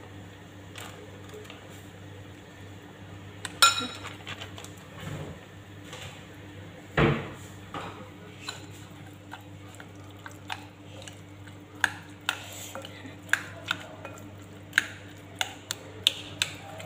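A metal utensil clinking and scraping against a pot and dishes, over a low steady hum. A sharp clink comes about three and a half seconds in and a duller knock at about seven seconds, then a quick run of light clinks near the end.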